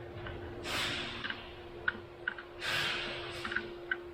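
A person breathing heavily close to the microphone: two long exhales about two seconds apart, with a few light metallic clicks between them and a faint steady hum underneath.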